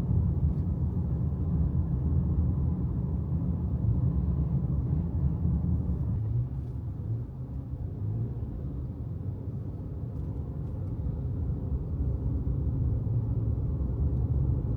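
Steady low rumble of a car's engine and road noise while driving, easing a little about halfway through.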